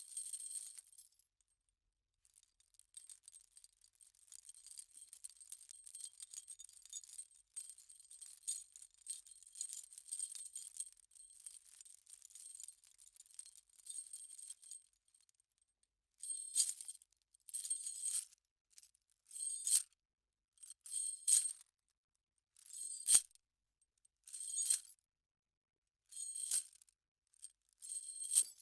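Metal chain jingling and rattling as it is handled, continuously for about twelve seconds. Then comes a series of about eight short separate rattles, one of them a sharper clank near the middle of that stretch.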